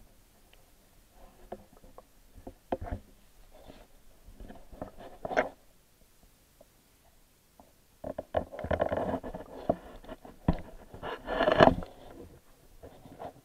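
Irregular clicks, scrapes and muffled water noise picked up by a camera submerged in a shallow pond. Scattered ticks and short swishes come first, then a louder, busier stretch in the second half that peaks near the end.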